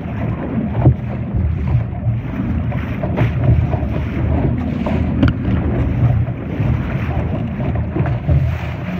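Wind buffeting the microphone in a steady low rumble, with water rushing and splashing against a Laser sailing dinghy's hull as it sails.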